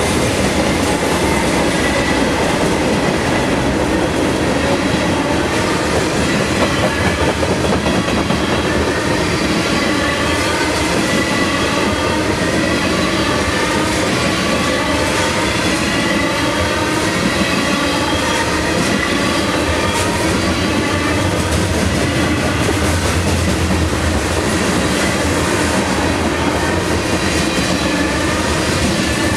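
Freight train cars (covered hoppers and tank cars) rolling steadily past on the track, a continuous, loud rumble of wheels on rail.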